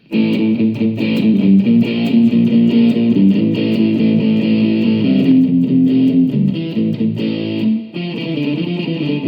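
Electric guitar played through an amplifier with AmpliTube app effects routed via an iRig interface, its gain and bass turned up; a riff of sustained, ringing notes that starts abruptly and pauses briefly about eight seconds in.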